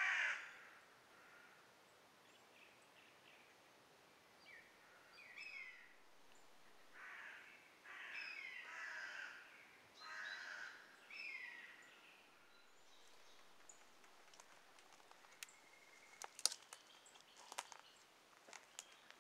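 Quiet woodland with a crow-family bird giving a series of hoarse caws. Then, in the last few seconds, a scatter of sharp clicks and snaps.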